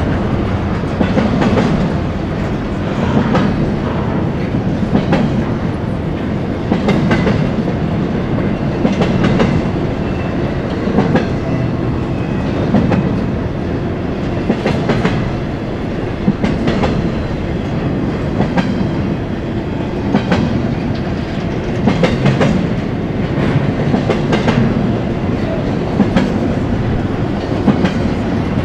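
Union Pacific freight train's cars rolling past with a steady rumble, the wheels clicking over the rails about every two seconds, often in pairs as each car's trucks pass.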